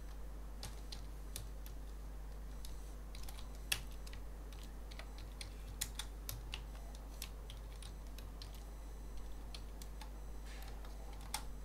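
Faint, irregular keystrokes on a computer keyboard as code is typed, over a steady low hum.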